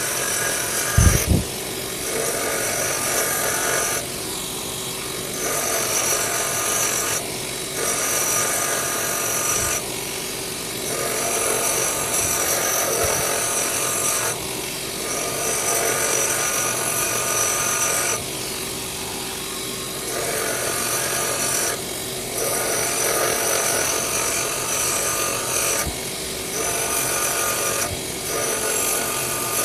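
Belt sander of a Ryobi bench grinder/sander running steadily while a spring-steel knife blade is ground on the belt. The grinding comes in repeated passes of a couple of seconds each, with the motor running between them, and there is a brief thump about a second in.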